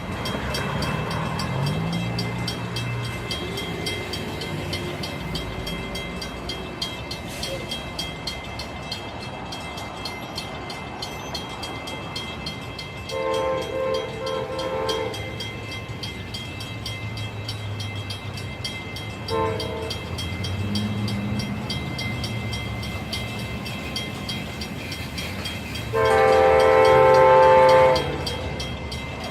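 Train horn sounding the grade-crossing signal of two long blasts, a short one and a final long one, the last blast the loudest, over the rumble of the approaching train.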